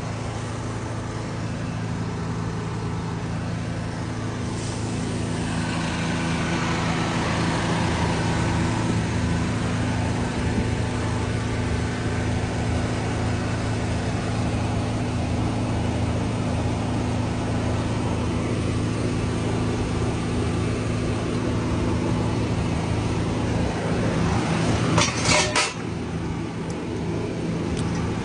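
Volvo VNL truck's diesel engine running steadily at a constant speed. It grows louder with added hiss a few seconds in, and a short cluster of sharp knocks comes near the end.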